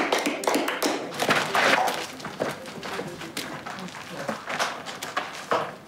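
Irregular knocks and thuds, loudest in the first couple of seconds and thinning out toward the end.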